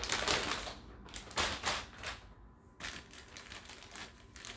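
Plastic packaging rustling and crinkling as it is handled, in several short spells of crackling.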